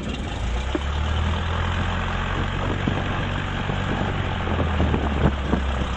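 Cessna 152's four-cylinder Lycoming engine running steadily at low throttle just after starting, heard from inside the cabin.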